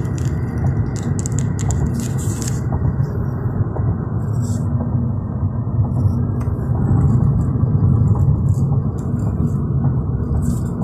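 Steady low road and tyre rumble of a car driving at speed, heard from inside the cabin, slightly louder about seven seconds in, with a few light crackles over it in the first seconds.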